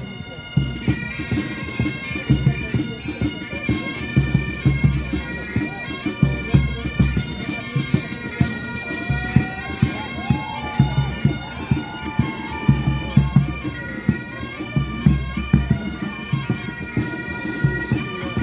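Military pipe band playing: bagpipes carry a marching tune over a steady drone, with drums beating time underneath.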